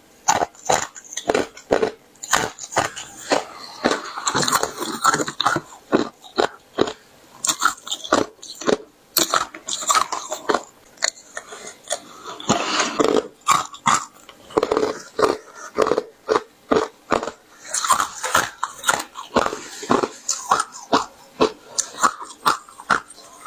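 Pieces of pure ice being bitten and chewed close to the microphone: sharp, irregular crunches and cracks, several a second.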